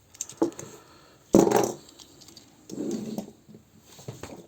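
Small hard plastic toy parts being handled. A couple of light clicks, then one loud knock about a second and a half in, and a softer scuffing near three seconds.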